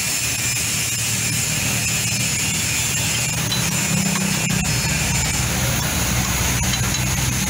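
An engine running steadily, its low hum growing a little stronger about four seconds in, with light clicks of metal tools scraping and tapping on a concrete mixer drum.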